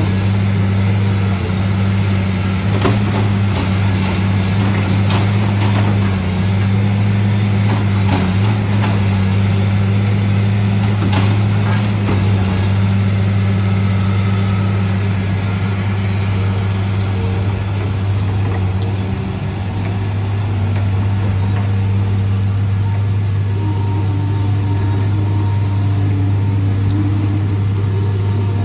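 Caterpillar log loader's diesel engine running steadily at working speed. Through the first half there is a string of sharp knocks and clanks as the tracked machine works the logs.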